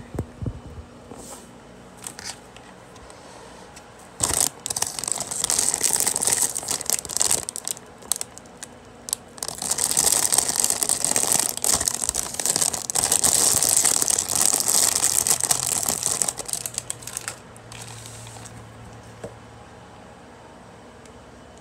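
Plastic Samyang ramen packet crinkling and rustling as it is handled close to the microphone, loud and irregular for about twelve seconds starting around four seconds in, then dying down to faint handling.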